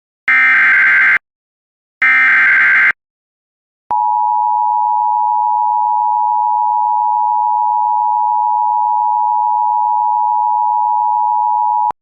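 Emergency Alert System SAME header: two loud bursts of digital data screech, about a second each, the last two of the header's three repeats, then after a short gap the steady EAS attention tone, held for about eight seconds and cut off abruptly. Together they signal the start of a new emergency alert.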